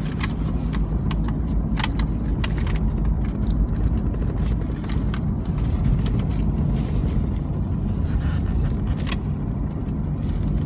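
Steady low rumble of a car driving, heard from inside the cabin, with a few sharp clicks and rattles.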